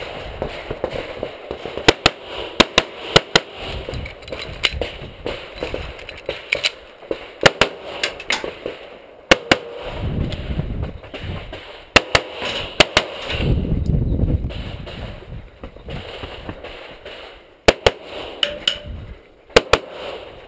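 Pistol shots fired in strings of quick pairs, about twenty shots in all, with pauses between strings. A low rumble fills some of the gaps between strings.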